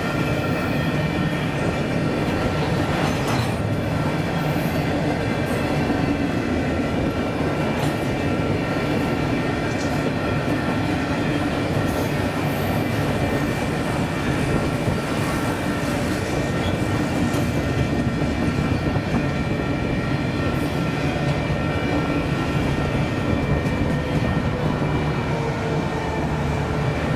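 Union Pacific double-stack intermodal well cars rolling past: a steady rumble of steel wheels on rail, with a steady high ringing over it and a couple of short clanks, the first about three seconds in.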